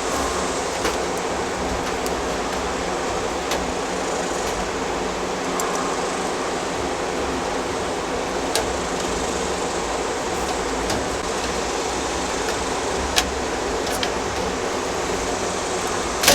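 Steady fan-like noise with a few sharp clicks scattered through it, about six over the stretch, which fit wire mesh being handled and fastened onto a cage door.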